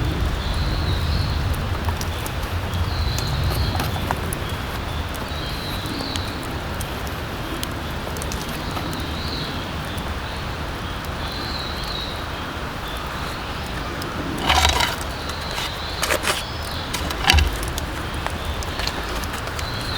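Forest campsite ambience: a steady hiss with small crackles and a low rumble, while a bird repeats a short high call every two to three seconds. Three sharp knocks or clinks come near the end.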